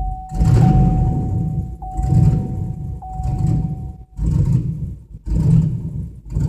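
Chevrolet Camaro engine running rough on part throttle, surging and sagging about once a second and barely staying alive. A steady high warning tone sounds alongside it and stops about four seconds in. The stumbling comes from a loose engine-to-chassis ground connection.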